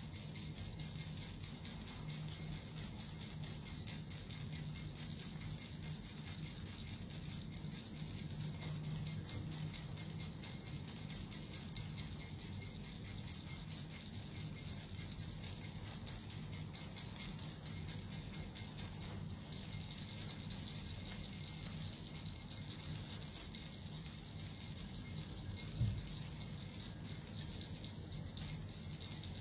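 Suzu-type jingle bells shaken continuously in a steady, dense shimmering jingle, as in a shamanic healing sound session.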